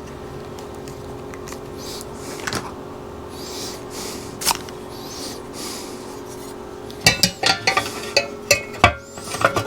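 Small clicks and light clatter of hand tools being handled on a workbench, with a run of quicker, sharper clicks from about seven seconds in, over a steady faint hum.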